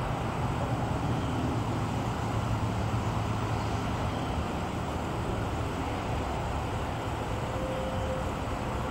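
Steady rush and rumble of high wind, with a faint steady hum coming in about seven seconds in.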